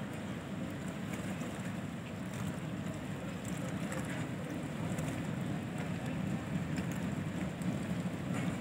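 Steady low rumble from a large passenger ship lying at the quay, with no distinct tones or sudden sounds.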